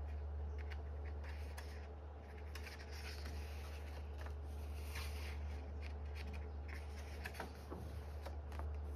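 Pages of a softcover photobook being turned and smoothed by hand: paper rustling and sliding, with scattered light taps, over a steady low hum.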